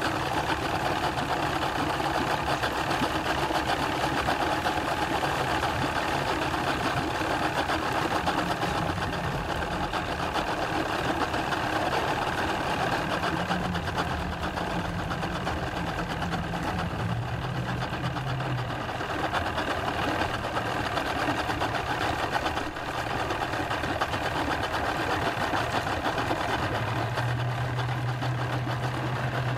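Engines idling, a steady mechanical drone whose low hum shifts in pitch a few times; near the end an outboard motor idles on a small aluminium boat at the dock.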